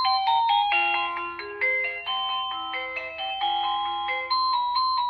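Electronic doorbell chime playing one of its built-in melodies: a quick run of synthesized bell-like notes, each struck and quickly fading, stepping up and down in pitch.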